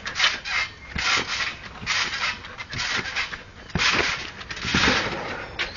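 Garden trampoline springs creaking and the mat thumping with each bounce, about once a second, with a few sharp knocks. Loudest around four to five seconds in, as a flip attempt comes down on the mat.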